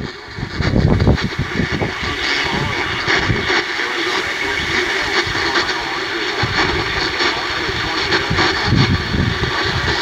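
An AM station's Emergency Alert System flash flood warning playing through a small portable radio's speaker, buried in heavy, steady static and hiss.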